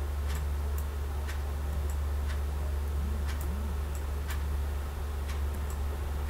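A clock ticking steadily about once a second over a constant low hum, with a few fainter, sharper clicks in between.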